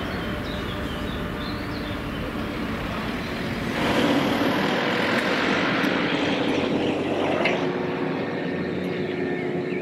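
Mobile crane's diesel engine running steadily while it hoists a precast concrete balcony slab, a little louder from about four seconds in.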